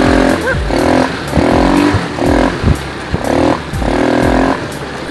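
ATV engine running as the quad is ridden over a bumpy dirt track. The engine sound comes and goes about five times, each for roughly half a second, over a rumble with knocks.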